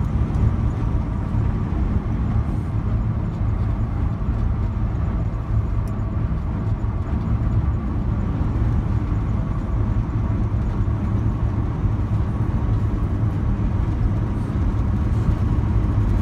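Steady low drone of a semi truck's engine and road noise, heard from inside the cab while the truck is being driven.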